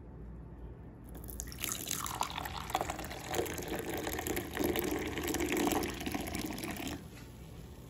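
Hot milk tea poured in a thin stream into a white teacup, splashing and frothing as the cup fills; the pour starts about a second in and stops abruptly near the end.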